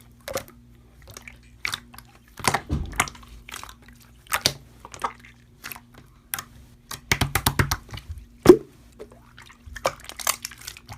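Slime being squished and pressed by hand, making irregular wet clicks and pops.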